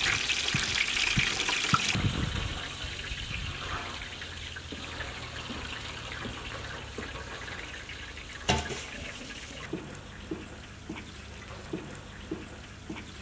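Cooking juices from pieces of roasted whole goat trickling and dripping, a steady hiss for about two seconds, then quieter drips and light clicks. There is one sharp knock about eight and a half seconds in.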